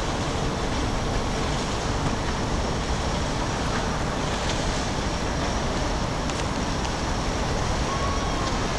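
Steady low rumble of city road traffic, unbroken.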